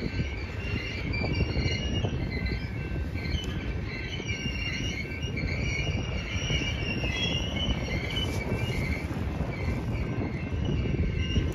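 Freight train flatcars rolling past, shoved in reverse, with a steady low rumble of wheels on rail. Faint high wavering tones come and go above it.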